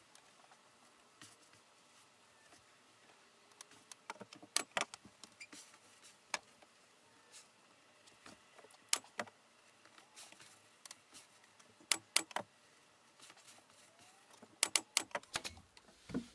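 Scattered sharp clicks and light knocks, some single and some in quick runs of two to four, from hand work with tools or materials.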